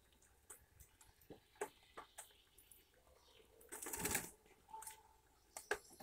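Eurasian red squirrel cracking and nibbling sunflower seeds at a feeder tray: a scatter of small, sharp cracks and clicks, with a louder rustle about four seconds in.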